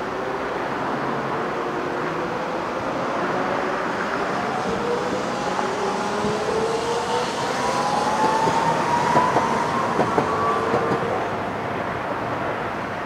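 Low-floor electric streetcar of the Hiroshima Electric Railway picking up speed past the listener, its traction motors giving a whine that rises slowly in pitch. A few clicks of the wheels on the track come as it passes closest, over steady road traffic.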